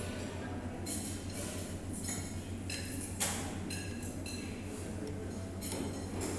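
Metal fork and spoon clinking against each other in a string of irregular light strikes, each with a short high ring, over a steady low hum.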